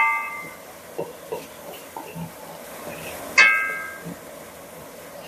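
A wooden spoon knocks twice against the rim of a metal cooking pot, about three and a half seconds apart, and the pot rings briefly after each knock. Between the knocks come lighter taps and scrapes of stirring, over a faint sizzle of onion frying in oil.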